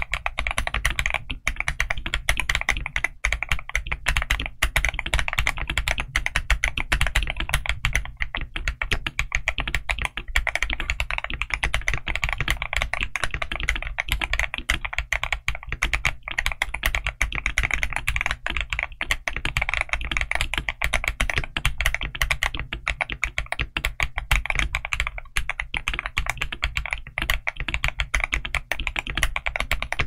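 Continuous typing on a modded GAS67 mechanical keyboard fitted with Outemu Lanny full-POM linear switches and Keytok KDA Symphony keycaps, many keystrokes a second without a break.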